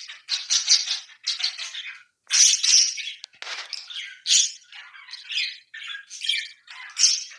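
Pet parakeets chattering and squawking: a rapid, overlapping run of short high-pitched calls.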